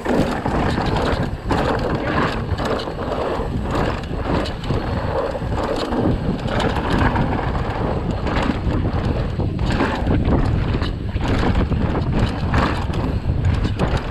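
Wind buffeting the camera microphone while a mountain bike is ridden over rough, stony trail, with the tyres rumbling and frequent rattles and knocks from the bike.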